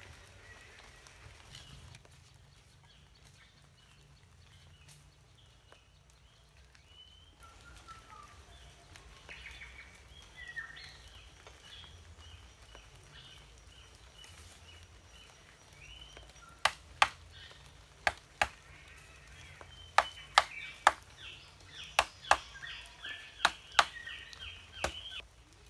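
Sharp knocks of a metal tool chopping at a mud brick, about a dozen strikes, many in quick pairs, in the last third. Small birds chirp throughout.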